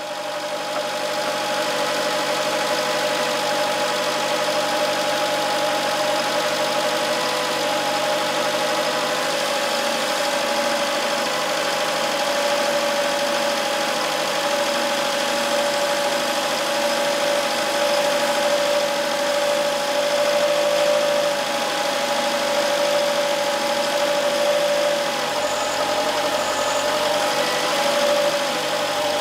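Small vacuum pump running steadily with a constant mid-pitched hum, sucking old brake fluid out of the master cylinder reservoir through a tube into a catch jar. The pitch wavers briefly near the end.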